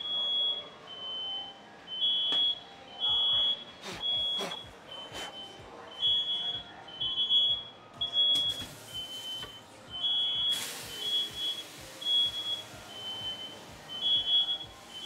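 Smoke alarm sounding, set off by smoke from a pan-oil fire: repeated high-pitched beeps in short bursts. A few sharp knocks come in the first few seconds, and a broad hiss joins from about eight seconds in.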